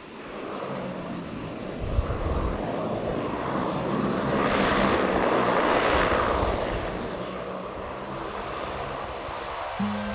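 Single-engine floatplane's engine and propeller running as it touches down on the water and taxis. The noise swells to its loudest around the middle and then eases, with a faint thin high whine above it. Music comes in near the end.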